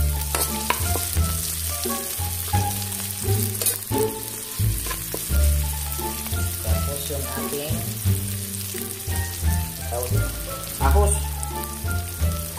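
Sliced onions and ginger sautéing in hot oil in a wok, a steady sizzle with a metal spatula scraping and clicking against the pan as it stirs. Background music plays underneath.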